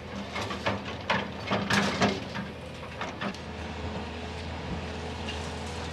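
A quick run of knocks and clatters for about three seconds, then a steady low background noise.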